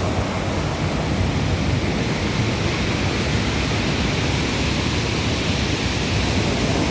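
Sea surf: a steady rushing noise with a heavy low rumble.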